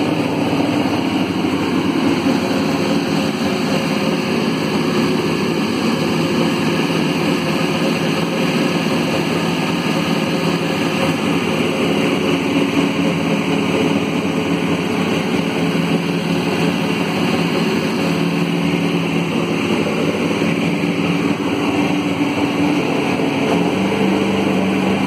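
Toyota Camry NASCAR race car's V8 engine running loud and steady at idle with the hood open, its pitch stepping up slightly near the end.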